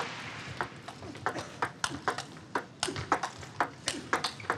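Celluloid-era plastic table tennis ball clicking in a rally, alternating sharp bounces on the table and hits off the rubber of the players' rackets, about three to four clicks a second.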